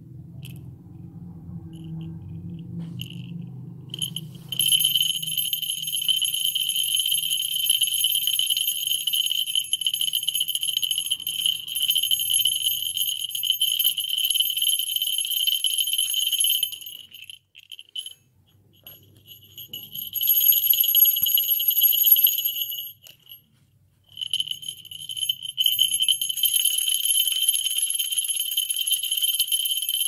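Hand-made copper falconry bell shaken rapidly, ringing continuously with a high, bright tone. After a few faint tinkles it sets in about four seconds in, breaks off twice for a second or two, and resumes each time.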